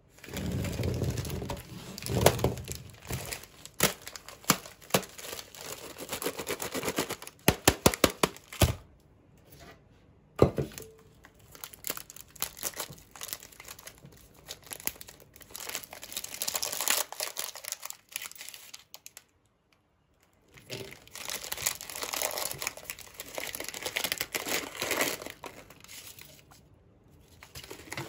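Plastic wrapping on a stack of pressed popcorn cakes being torn open and crinkled by hand, with sharp clicks as the cakes are handled, and a few short pauses.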